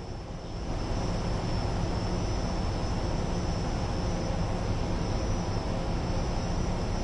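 Steady low rumble and hiss from a field microphone on the deck of a navy ship at sea, from the ship's machinery and the wind. It comes up about a second in and holds steady.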